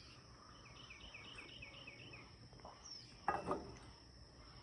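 Insects singing a steady high-pitched trill. About a second in, a quick run of about ten short chirps passes, and a brief louder sound comes a little past the middle.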